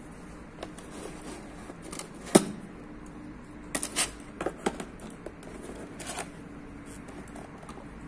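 Hands handling a boxed hair dryer and its clear plastic nozzle attachment in a plastic box insert: scattered plastic clicks and knocks, the sharpest about two seconds in and a quick cluster around four seconds in. The dryer is not running.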